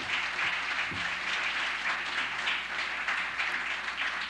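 Audience applauding, many people clapping together at a steady strength.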